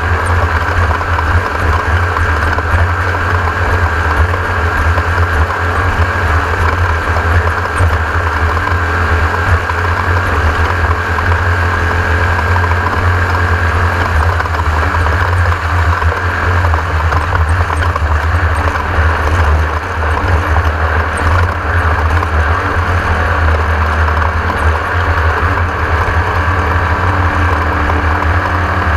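Class 1600 off-road race car running steadily at speed, its air-cooled 1600 cc VW engine giving a loud, constant drone.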